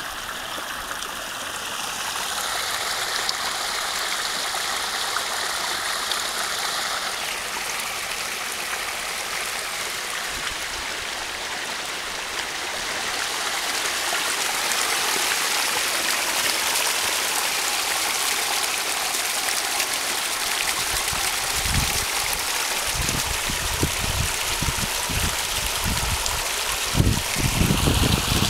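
Sewage overflowing from a surcharged sewer manhole, forced out under the lid and running across mud into a creek: a steady rush of water. Irregular low thumps come in over the last several seconds.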